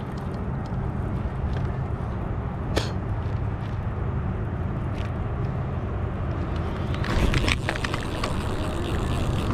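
Baitcasting reel being cranked over a steady low rumble, with occasional sharp clicks. About seven seconds in, a sudden burst of rapid clicking and whirring starts as the rod is swept back on a hook set and the reel is wound fast against a hooked bass.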